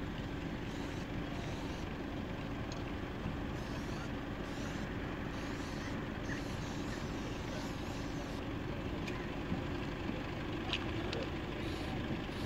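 Steady hum of vehicle engines idling, with a few faint clicks near the end.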